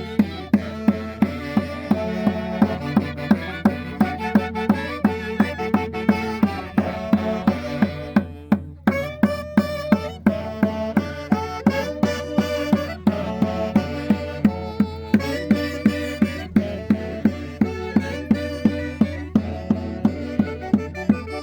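Live Andean folk band music: a melody over a steady, even beat of a little over two strikes a second, with a brief drop-out about nine seconds in.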